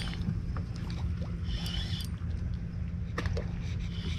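A steady low engine hum, with a few brief high-pitched scratchy sounds over it about one and a half seconds in and again near the end.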